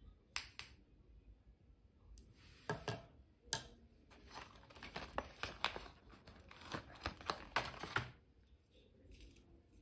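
Hard plastic pens clicking and tapping as they are handled and set down on a tabletop, mixed with rustling of clear plastic packaging. The sound comes as a few sharp clicks at first, then a dense run of clicks and rustle from about the middle until near the end.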